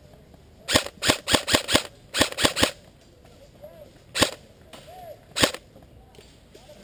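Airsoft guns firing single shots as sharp cracks: a quick string of five about a quarter-second apart, then three more, then two spaced single shots about four and five and a half seconds in.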